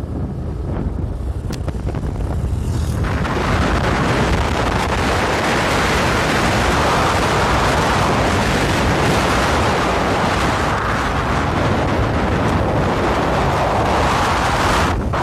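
Wind and road noise in a moving car: a steady low rumble, with a loud rushing of wind on the microphone that swells about three seconds in and holds.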